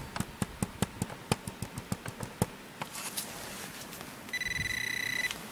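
Light clicks and knocks of digging into turf, then a steady, high electronic beep about a second long near the end: a metal detector sounding on the target in the freshly cut soil.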